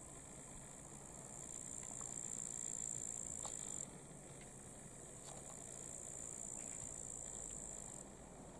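Steady high-pitched chirring of insects in the waterside meadow, stepping down in level about four seconds in and back up near the end, over the faint low hum of a distant motorboat's engine.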